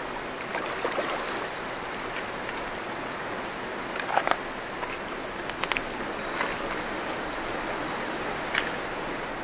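Fast river current rushing steadily, with a few short sharp sounds over it: the loudest about four seconds in, others at about five and a half and eight and a half seconds.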